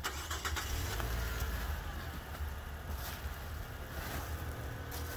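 Cardboard box flaps and bubble wrap being handled, with short crinkles and rustles, over a steady low rumble.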